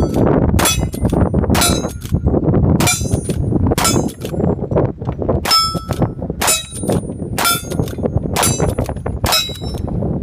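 A string of about ten gunshots, each followed by the ring of a steel target being hit, roughly one a second with a longer gap near the middle. Heavy wind rumbles on the microphone throughout.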